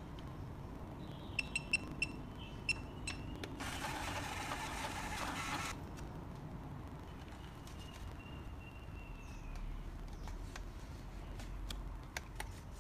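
Payment terminal giving several short electronic beeps as its touchscreen is tapped. About a second later its built-in thermal printer runs for about two seconds, printing a receipt. A few light taps on the screen follow near the end.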